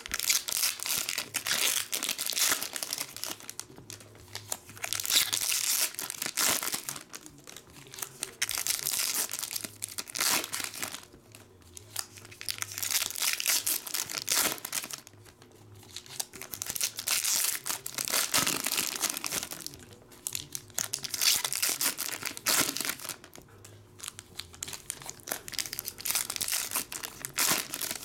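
Foil wrappers of Topps trading card packs crinkling and tearing as they are ripped open and handled, one pack after another. The sound comes in repeated bursts of a few seconds each with short quieter gaps between.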